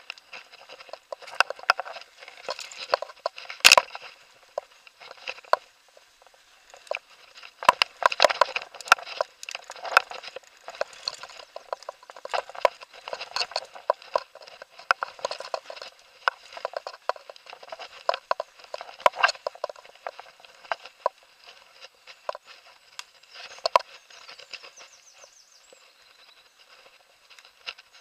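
Irregular rattling and knocking from a moving camera and its mount jolted over a rough dirt trail, with a sharp knock a few seconds in.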